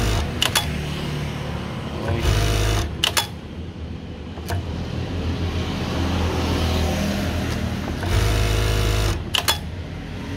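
JACK K4 multi-needle industrial sewing machine stitching in three short runs, at the start, about two seconds in and about eight seconds in. Each run ends with a few sharp clicks, the automatic thread trimmer cutting the threads and the presser foot lifting. A quieter steady hum fills the gaps between runs.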